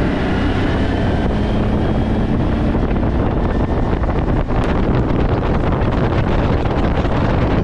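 Yamaha 40 outboard motor running at cruising speed as the small boat travels, with the engine's pitch clearest in the first couple of seconds. Wind buffeting the microphone and water rushing past the hull come in over it for the rest.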